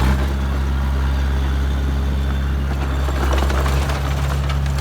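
Heavy diesel engine of earthmoving machinery running steadily, with a deep, even hum.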